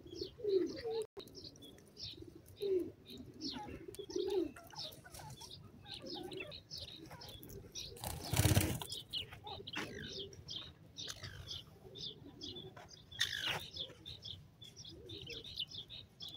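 Grey francolin's wings flapping in a short burst about halfway through as it flutters down off a wall, the loudest sound here. Small birds chirp throughout, with a few low cooing calls in the first few seconds.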